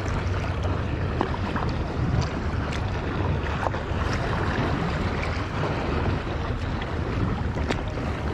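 Steady wind buffeting the microphone over choppy water lapping and splashing close around a person wading, with a few faint ticks.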